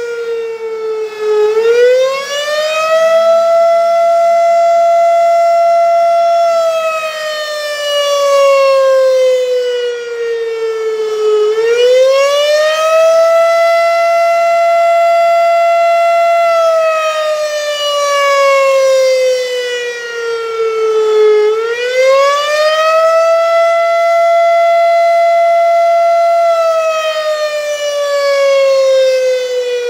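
Federal Signal RSH-10 Thunderbeam electromechanical rotating siren sounding its attack signal, one loud pitched tone. About every ten seconds it climbs quickly, holds steady for a few seconds, then slides slowly down, three times over.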